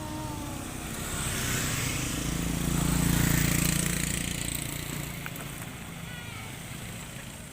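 A motor vehicle passing by: its engine note and road noise grow louder to a peak about three seconds in, then fade away.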